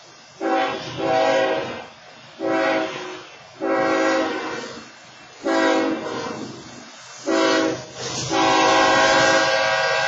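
BNSF freight locomotive's air horn sounding a series of blasts for the grade crossing, the last one held long and still going at the end.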